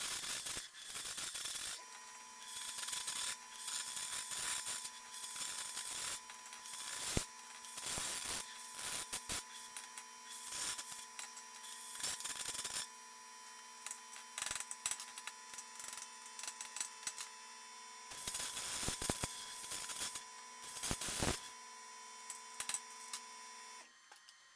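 Carbon-arc air gouger cutting out the old weld around a steel roller's end plate: a harsh crackling hiss of arc and air jet in repeated runs of one to a few seconds with short breaks. A steady faint high tone runs underneath and stops about a second before the end.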